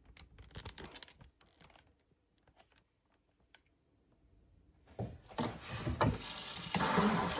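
Light clicks and rattles of a plastic freezer tray being handled, then, about five seconds in, water starts running and splashing into the tray, growing louder.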